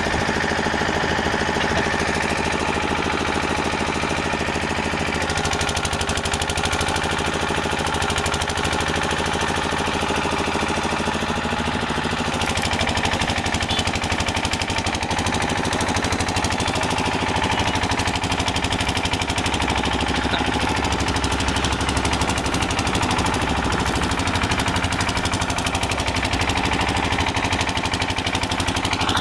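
An engine running steadily at an even pitch, with a fast, rough pulsing throughout.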